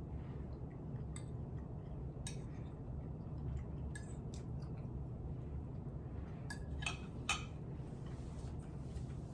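Kitchen utensils clinking and knocking against dishes in a series of separate sharp clicks, the loudest a few seconds from the end, over a steady low hum.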